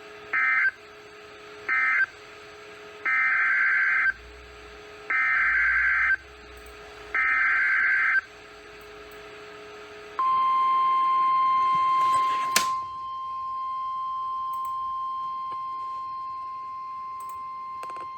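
NOAA Weather Radio SAME alert data tones: two short end-of-message bursts, then three longer header bursts about a second apart. These are followed, about ten seconds in, by the steady 1050 Hz weather radio warning alarm tone, with one sharp click shortly after it begins.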